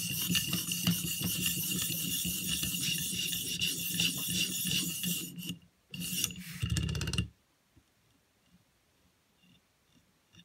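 600-grit sharpening stone on a guided-rod sharpener worked back and forth along the thin steel edge of a Victorinox paring knife in quick, continuous scraping strokes, raising a burr on the second side. The strokes pause briefly near six seconds, resume for about a second, and stop at about seven seconds in.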